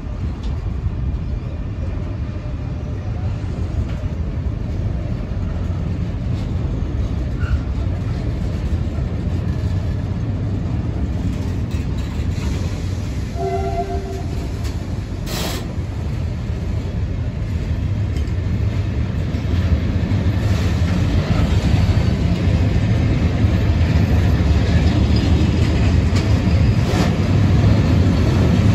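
Container freight train's wagons rolling past close by: a steady low rumble of wheels on rail that grows louder in the second half. A brief tone sounds just before halfway, followed by a sharp knock.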